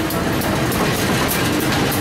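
Diesel locomotive passing at close range, its engine running with a steady hum over the heavy rumble of the moving train.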